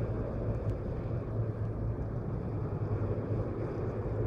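Steady low rumble of outdoor background noise with a constant low hum underneath; no distinct events.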